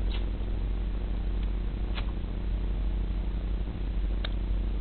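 Kissing: three faint lip smacks about two seconds apart, over a steady low hum.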